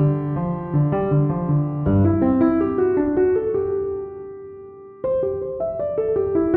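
Background piano music: single notes over low chords, the phrase fading away before a new one begins about five seconds in.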